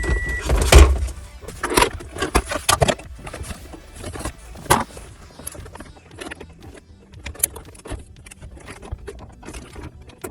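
Irregular clicks, taps and knocks of hands and a screwdriver working on plastic dashboard trim and screws, loudest in the first few seconds, with a short electronic beep right at the start.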